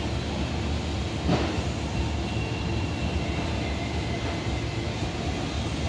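Steady low rumble of background noise in a large warehouse, with a single brief knock about a second and a half in.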